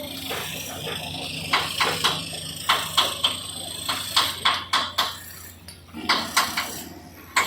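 Repeated sharp metallic clinks and knocks from construction work, coming irregularly at about one or two a second over a low steady background.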